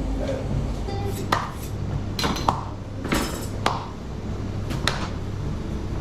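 Kitchen clatter: a handful of separate sharp knocks and clinks of dishes and utensils over a steady low hum.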